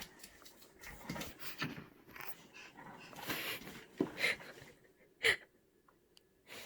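A baby huffing and breathing excitedly in short, irregular bursts, with one short louder vocal sound about five seconds in.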